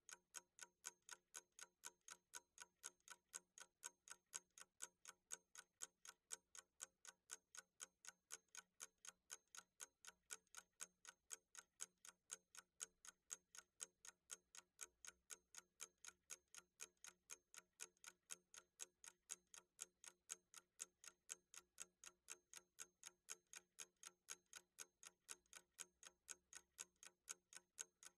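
Clock ticking, a quiet, quick, even tick-tock used as a countdown-timer sound effect.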